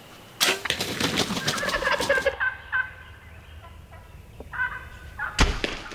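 Wild turkey gobblers gobbling: a loud, rapid rattling gobble starts about half a second in and lasts about two seconds, and a fainter gobble follows a little after four seconds.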